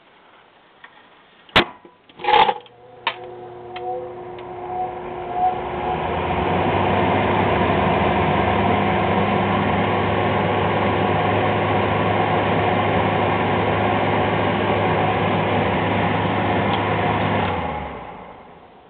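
1950s Fasco kitchen exhaust fan: two sharp clicks, then the motor spins up over a few seconds and runs steadily with a hum and a rush of moving air. Near the end it cuts off and fades out within about a second.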